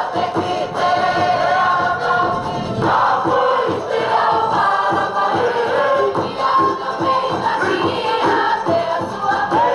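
A Cook Islands performing group singing together in chorus, men's and women's voices, over a steady percussive beat.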